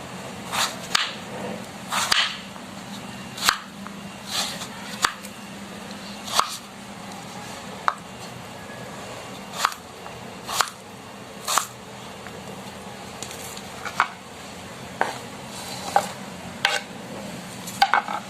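Knife cutting potatoes into pieces, the blade knocking on the cutting board in irregular sharp knocks about once a second.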